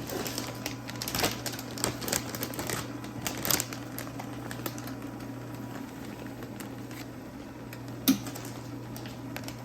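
Plastic zipper bags of dried taro stems being handled as the air is pressed out: light crinkles and clicks over a steady low hum, thinning out after about four seconds, with one sharp click near the end.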